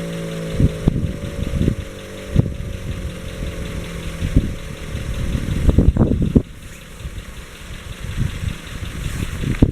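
Federal Signal 508 outdoor warning siren winding down after its test, one pitched tone with its overtones sliding slowly lower and fading out about four seconds in. Low rumbling and thumps run underneath, loudest around six seconds in.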